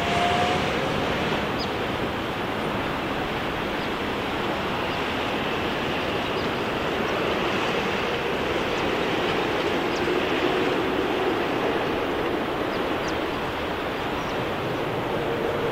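Distant jet airliner engines: a steady, even roar with a faint whine drifting slowly in pitch.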